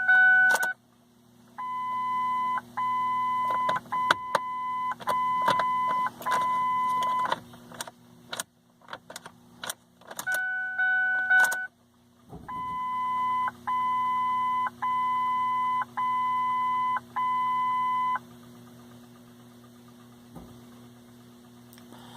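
Ford Focus dashboard warning chime: a run of steady beeps about one a second, broken around the middle by sharp clicks and a lower two-note chime, then a second run of beeps. A steady low hum runs underneath.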